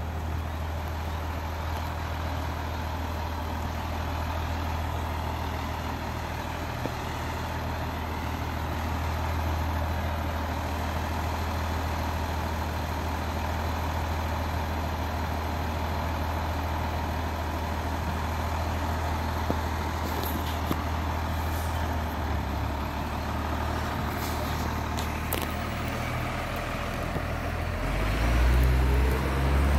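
Large truck's engine idling steadily with a low hum and a few faint clicks; near the end it grows louder and rises in pitch as it revs.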